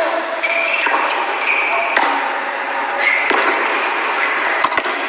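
Tennis rally on a hard court: sharp ball strikes on the racket about every second and a half, with short shoe squeaks early on, over a steady hall noise. The sound is thin and band-limited, from a re-recorded stream.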